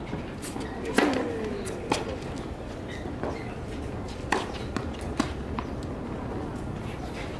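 A tennis racket striking a ball on the serve about a second in, the loudest sound, with a brief ringing that falls in pitch. A handful of quieter sharp pops from balls hit and bouncing on the hard court follow over a steady background hum.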